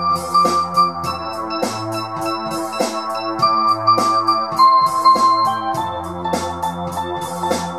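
Electronic keyboard music played live on a Korg microKORG synthesizer and a Yamaha PSR-295 keyboard: sustained organ-like chords over a bass line whose note changes every couple of seconds, with a sampled drum loop ticking steadily underneath.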